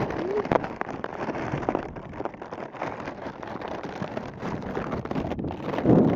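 Strong wind buffeting a phone's microphone, with steady crackling and rustling and a louder gust near the end.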